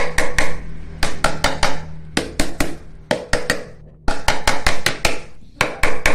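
Short ribbed steel rod hammered against the edge of a hardened cast in a silicone planter mould to break it loose: sharp knocks in quick runs of three to five, with short pauses between runs.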